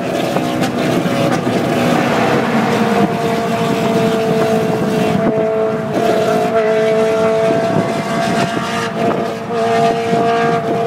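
A car cruising at motorway speed, heard from inside its cabin: engine and road noise with a steady droning hum that settles in about two seconds in.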